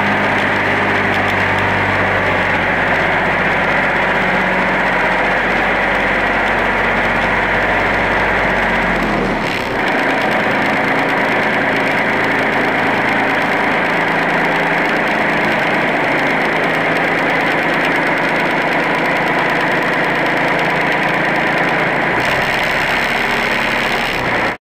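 John Deere 2720 compact tractor's three-cylinder Yanmar diesel engine running steadily while the tractor moves; the deep low rumble drops away about nine and a half seconds in.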